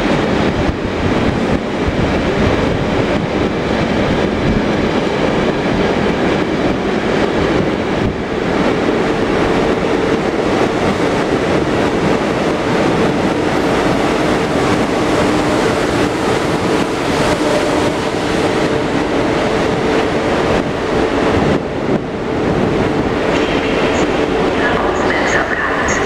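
Deutsche Bahn ICE high-speed train rolling slowly past along a platform: a steady rumble of wheels on rails with a steady hum in it. A high-pitched squeal from the wheels or brakes comes in near the end.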